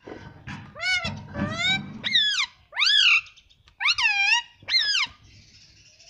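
Indian ringneck parakeet giving a string of about seven short, loud squawks, each rising and falling in pitch.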